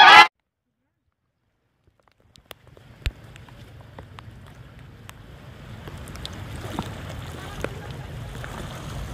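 Muddy floodwater rushing through a swollen river channel: a steady low rumble of water with a few short knocks. It begins after about two seconds of silence and grows a little louder about halfway through.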